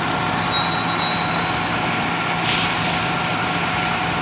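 Schwing truck-mounted concrete pump running steadily, a steady noisy drone with a faint hum, and a short burst of hiss about two and a half seconds in.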